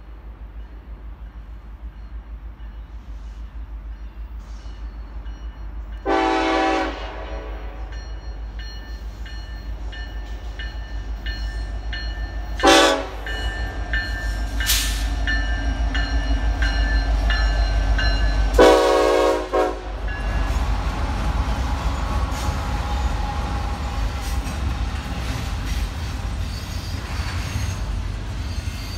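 Norfolk Southern freight train approaching and passing, its lead diesel locomotive sounding the horn three times: a long blast, a short one, then a longer one. The low rumble of the engines and rolling cars grows louder as the locomotives come by, then the freight cars roll past.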